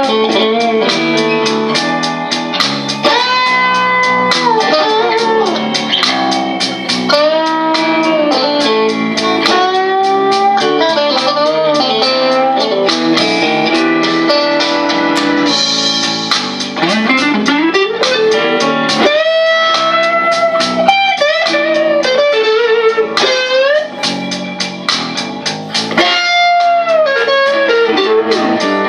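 Squier Stratocaster electric guitar with a crunch tone playing improvised blues lead over a blues backing track, with many bent notes, slides up into notes and held notes with vibrato.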